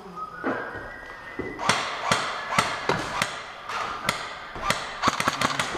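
Airsoft guns firing in an indoor close-quarters game: about a dozen sharp, irregular cracks of shots and BB hits, starting about a second and a half in and coming quicker near the end.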